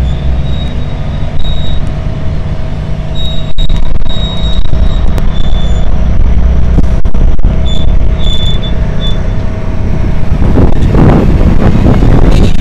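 Heavy-haul truck's diesel engine running with a steady low rumble as it pulls a long multi-axle trailer slowly past. About ten seconds in, a louder rush of noise rises as the trailer's wheels roll by close up.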